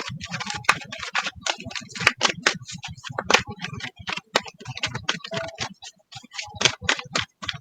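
Oracle and tarot cards being shuffled and handled: rapid, irregular clicks and flicks of card stock.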